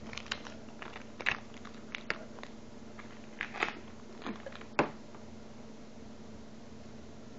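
Handling of plastic shipping bags and packaging: a run of short crinkles and clicks in the first five seconds over a steady low hum, then only the hum.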